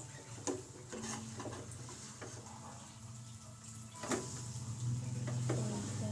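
Spatula knocking and scraping against a frying pan while a fried egg is flipped: a few scattered sharp clicks, with a louder knock about four seconds in. A low steady hum runs underneath and grows stronger near the end.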